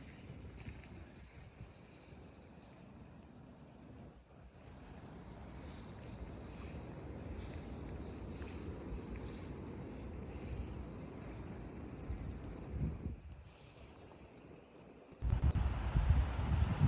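Insects singing steadily, a constant high-pitched tone, over a low rush of wind. About fifteen seconds in, a gust of wind suddenly buffets the microphone.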